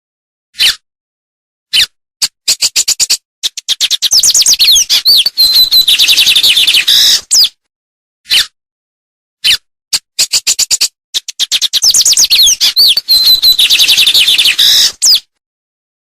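A songbird singing: single sharp, high calls, then two long stretches of rapid chattering notes mixed with sweeping whistles. The stretches come about seven seconds apart and sound much alike, as the same song repeated.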